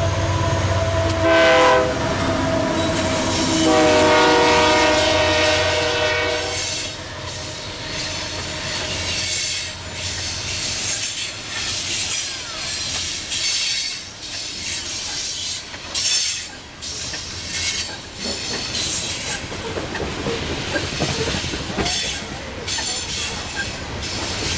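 A diesel freight locomotive passes close with its engine rumbling and sounds its horn, one short blast about a second in and then a long blast lasting about three seconds. After that the freight cars roll by, their wheels clattering rhythmically over the rail joints.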